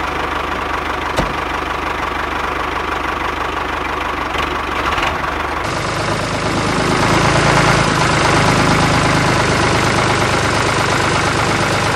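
Miniature DIY tractor's motor running steadily with a low, engine-like chugging drone. There is a single click about a second in, and the sound becomes fuller and louder about six seconds in.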